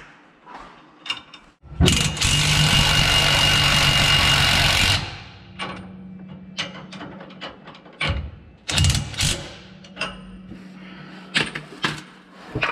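Impact wrench running for about three seconds, starting about two seconds in, driving a bracket bolt on the motorhome frame. Before and after it come scattered clicks and clanks of bolts, nuts and tools, over a faint steady hum.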